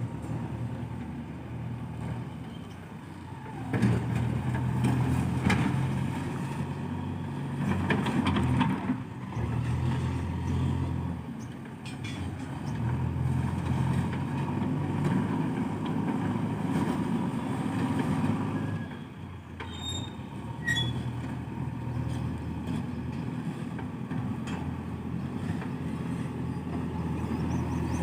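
A JCB 3DX backhoe loader's diesel engine running under working load. It rises in level about four seconds in, eases off briefly around two-thirds of the way through, then picks up again, with a few short knocks over it.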